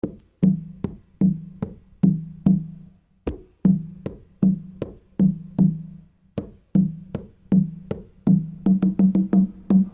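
Music: a steady percussive beat of sharp hits, about two and a half a second, each with a short low tone. The hits come faster near the end.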